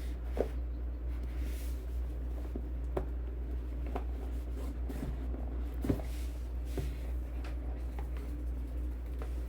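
Hands handling a keyboard and its packaging: scattered light taps and knocks with soft rubbing and rustling, at irregular moments and loudest about half a second in and near the middle, over a steady low hum.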